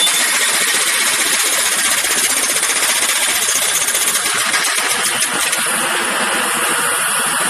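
Pneumatic jackhammer hammering continuously, a fast, steady rattling stream of blows.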